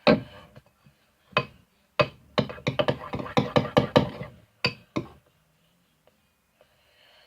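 A rapid series of hard knocks and clicks, densest about two to four seconds in, then stopping.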